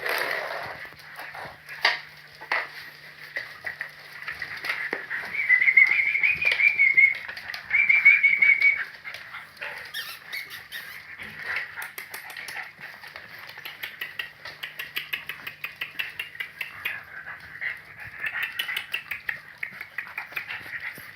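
French Bulldog puppies squeaking and whining in high, wavering squeals, loudest in two stretches partway through, with many small clicks throughout.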